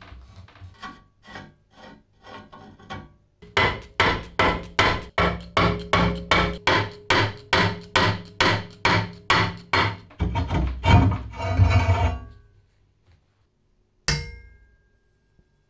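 Steady hammer blows on steel parts of a rusty cast-iron press, about three a second. They are light at first, then heavy and ringing, and come faster and hardest near the end of the run. A little later comes one sharp metallic clank with a brief ring.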